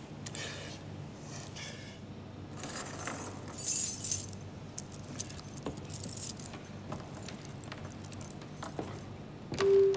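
A bunch of metal keys jangling as they are picked up off a wooden desk, loudest about three to four seconds in, followed by scattered light knocks. Music begins just before the end.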